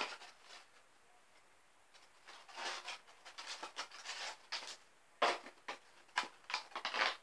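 Close scratchy rubbing and handling noises from hands working something near the microphone: a sharp click at the start, then irregular scraping bursts from about two seconds in, busiest near the end.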